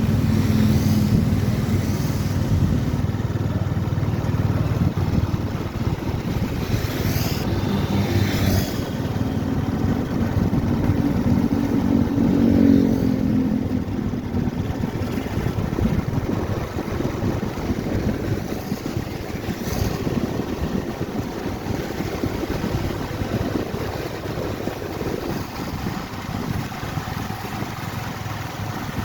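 Motorcycle being ridden: its engine running under steady wind and road noise, with a louder rise in engine sound about twelve seconds in.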